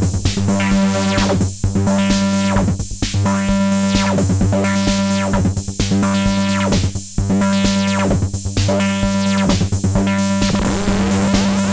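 Erica Synths Bassline analog bass synthesizer playing a quick sequenced pattern over a held low note, its filter sweeping open and closed about every one and a half seconds.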